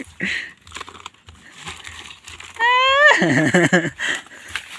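Kitten meowing: one high meow about two and a half seconds in, rising slightly and running straight into a lower, wavering cry that stops about a second later.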